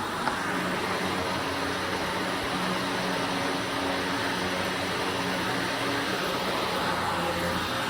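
Carpet-cleaning machine running: a steady hum under a constant rushing-air noise.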